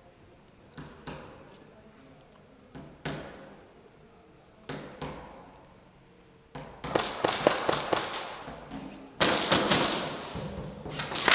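Airsoft guns firing: a few spaced pairs of sharp pops, then rapid strings of shots from about seven seconds in and again near the end.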